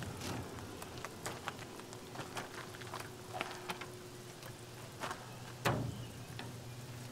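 Faint sizzling of aircraft-grade paint stripper eating into the old paint on a Peterbilt's hood, like frying bacon: many tiny scattered crackles and pops as the stripper lifts the paint. One louder knock about two-thirds of the way through.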